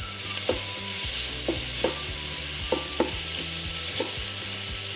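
Sliced onions sizzling in hot oil as they are stirred in the pan, with a spatula knocking or scraping against the pan every half second to second.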